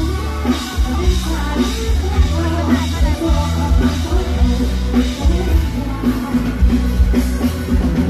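A woman singing a Thai song live into a microphone, backed by a band with a heavy, steady bass and drum kit, loud through a stage PA.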